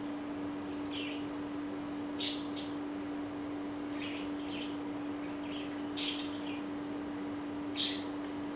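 Short, high chirping animal calls, one every second or two with some louder than others, over a steady low hum.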